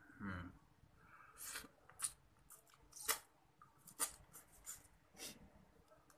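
Cooked crab being eaten by hand: shell being bitten and pulled apart and fingers sucked, heard as a string of about six sharp cracks and smacks with a short low mouth sound near the start.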